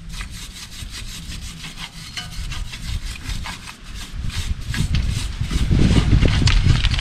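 Hand wire brush scrubbing back and forth over a car's brake caliper to clean off dirt and brake dust. It makes a fast, scratchy rasp of about four strokes a second, which grows louder over the last couple of seconds.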